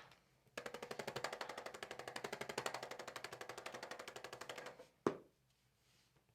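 A small mechanical device rattling in rapid, even pulses, about a dozen a second, for about four seconds. It stops, and a single sharp click follows.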